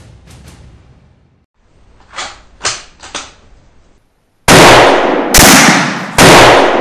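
Rifle shots: three very loud, sudden shots about a second apart in the last third, each trailing off, after three softer sharp cracks a little earlier.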